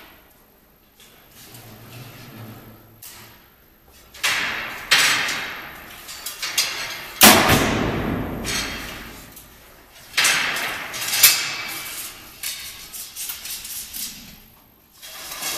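Compound bows being shot: about five sharp snaps of released bowstrings, around four and five seconds in, the loudest around seven seconds in with a long echo, and two more around ten and eleven seconds in.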